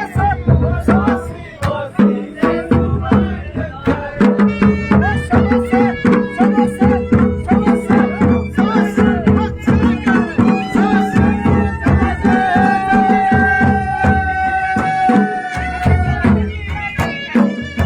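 Pahari nati folk dance music: a fast, steady drum beat under a melody, with a long held note about two-thirds of the way through.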